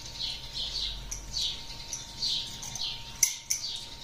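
Hand pepper mill being twisted to grind pepper, giving short high squeaks about twice a second, with two sharp clicks a little past three seconds in.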